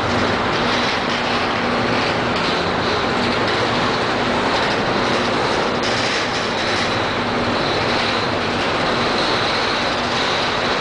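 Empty freight wagons, boxcars and covered hoppers, rolling past: a steady rumble and clatter of steel wheels on the rails, with a faint high ringing tone over it.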